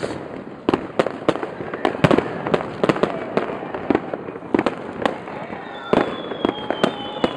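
Fireworks going off all around: a rapid, irregular string of sharp bangs and cracks from rockets and firecrackers. Near the end a high whistle starts, falling slowly in pitch.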